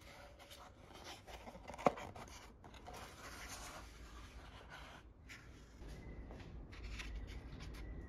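Rustling and scraping of a pulp cardboard egg carton being handled and opened on a stone countertop, with one sharp click about two seconds in.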